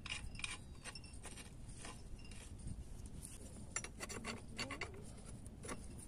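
Light, irregular metal clinks and scrapes of a spanner working the bolts on a water pump's inlet flange while a suction hose is fastened to it.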